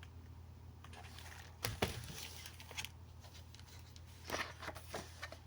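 Paper rustling twice, about a second and a half in and again near the end, over a low steady hum: a picture-book page being turned between verses.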